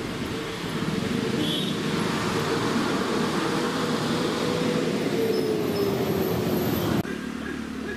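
An engine running with a steady hum under a wash of noise; the hum sinks in pitch as the engine slows, and the sound cuts off abruptly about seven seconds in.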